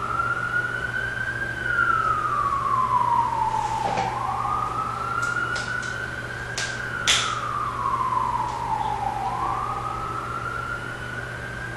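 Emergency vehicle siren wailing, its pitch slowly rising and falling about every four seconds. A few sharp clicks come around the middle.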